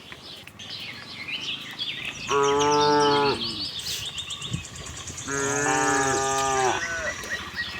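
Cows mooing: two long, low moos, the second a little longer, about three seconds apart.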